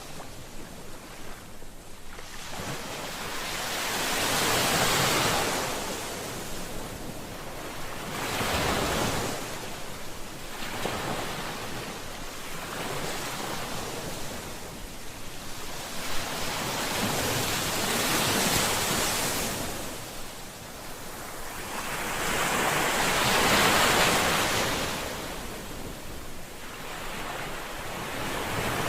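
Ocean waves breaking and washing on a shore, the surf swelling and receding in slow surges every few seconds, the loudest a little past the middle.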